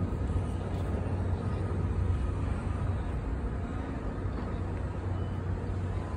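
Steady outdoor background rumble with a low hum and an even hiss, without distinct events.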